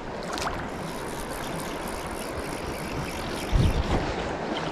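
Steady rush of shallow creek water flowing past. A low thump comes a little past three and a half seconds in.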